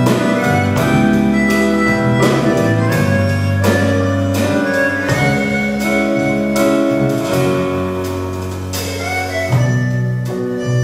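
Live instrumental music: a free-reed instrument of the harmonica and accordion family with piano, bass guitar and drums, playing held chords over a bass line with regular drum strokes.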